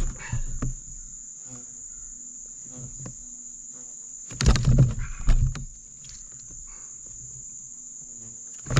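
A steady, high insect buzz from the riverside trees, with a short cluster of heavy thumps and knocks against the kayak about four and a half seconds in as the fish is handled.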